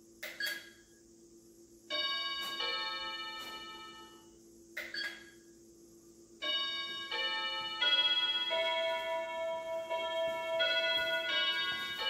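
A house doorbell chime plays a multi-note tune twice: a short run of ringing notes about two seconds in, then a longer one from about six seconds on. A few short clicks come just before each tune.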